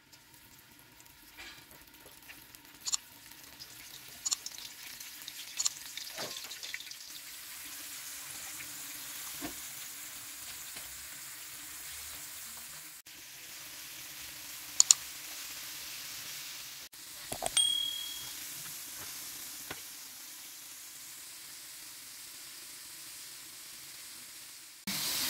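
Cornflour-coated prawns deep-frying in hot oil: a steady sizzle of bubbling oil that builds over the first several seconds as the prawns go in, then holds. A few sharp clicks and pops break through it, the loudest a pair about halfway through.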